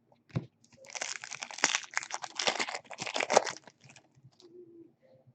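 Crinkling of a plastic trading-card pack wrapper as cards are handled: a dense crackle starting about a second in and lasting about two and a half seconds, with a few small clicks before and after.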